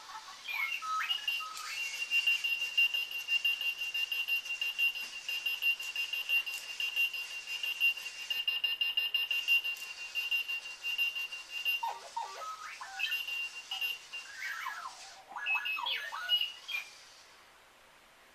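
Clocky robotic alarm clock sounding its alarm. Warbling electronic chirps glide up and down, then a long run of rapid high-pitched beeping holds on one note, then more warbling chirps. It stops about 17 seconds in.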